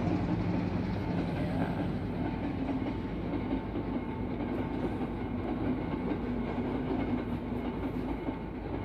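A long train rolling past at close range: a steady, continuous rumble of wheels on the rails with a low hum, easing slightly in level over the seconds.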